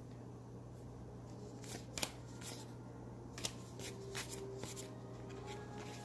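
Baseball trading cards being handled and flipped through: a few short, scattered card slides and clicks over a steady low hum.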